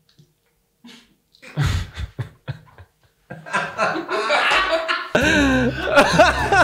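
Laughter and chuckling, starting about three seconds in after a near-silent opening with a few short breaths.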